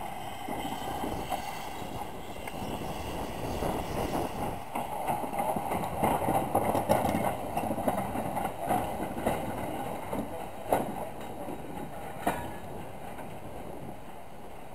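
Small saddle-tank steam locomotive passing slowly, its exhaust chuffing and the train rumbling and clanking along the rails. It is loudest about midway, with a couple of sharp clanks, then fades as the train pulls away.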